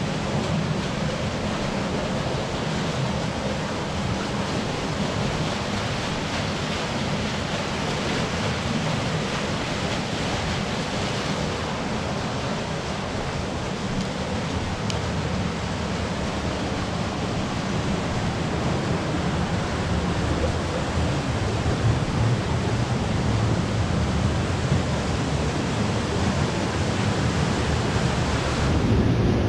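Steady rushing of a small stream cascading down a narrow rock gorge.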